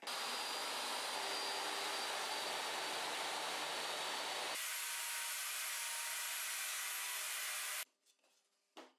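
Table saw with a dado stack running while a board is pushed through it to cut a groove: a steady whir that changes in tone a little past halfway and stops abruptly near the end, followed by a faint knock.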